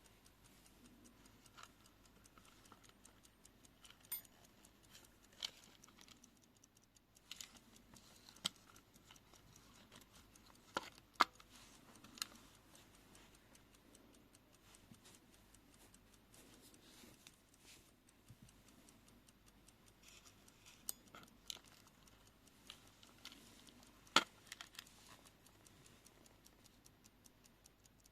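Faint, fast, even ticking of a Europa mechanical wind-up travel alarm clock, with a dozen or so louder, irregular clicks scattered among the ticks.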